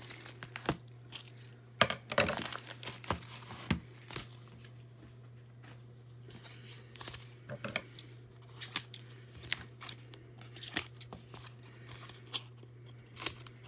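Mail envelopes being torn open by hand: intermittent paper tearing, crinkling and sharp rustling snaps, over a steady low hum.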